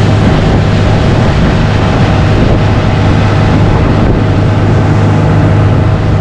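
Outboard motor running at speed with a steady low hum, over the rush of the boat's wake and spray.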